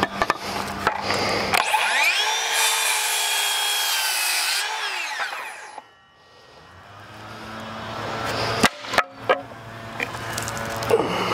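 Ryobi ONE+ HP 18V brushless cordless 7-1/4 in. circular saw spinning up, cutting through a wooden board for about three seconds, then winding down. A few sharp knocks follow, about nine seconds in.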